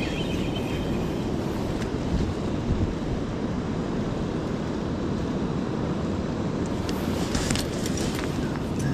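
Steady low outdoor rumble of wind on the microphone and a flowing river. Near the end come a few light metallic knocks and clinks from a steel ladder being climbed down.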